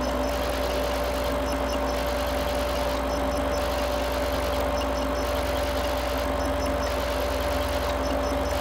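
Loud electronic noise music from a laptop: a dense, steady hiss with a held mid tone and a low buzz, and a small high chirping figure that repeats roughly every second and a half.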